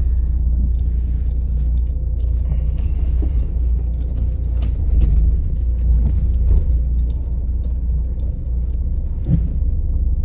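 Steady low rumble of a car's engine and road noise heard from inside the cabin while the car is moving, with a few faint clicks.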